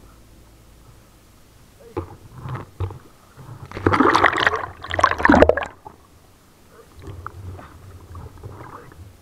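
Water splashing and sloshing close to the microphone, with a few sharp knocks about two seconds in and the loudest churning from about four to almost six seconds in, then quieter dribbling noises.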